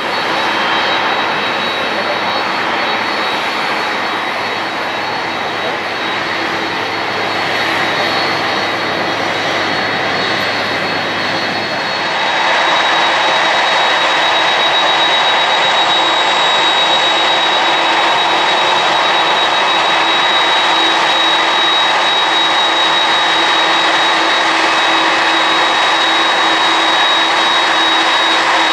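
Boeing 767-300's twin turbofan jet engines running as the airliner taxis in: a steady jet roar with a high steady whine, growing louder about twelve seconds in.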